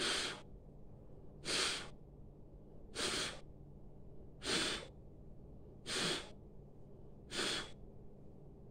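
A woman blowing out six short, sharp breaths through pursed lips, about one every second and a half, as a pranayama breathing exercise.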